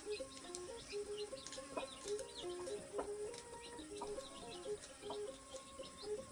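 Chickens clucking faintly, with a string of short, high chick peeps.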